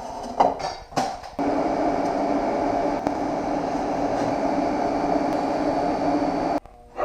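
TIG welder arc running steadily for about five seconds and then cutting off suddenly, tacking exhaust tubing together. A few light knocks come before the arc starts, as the parts are set up.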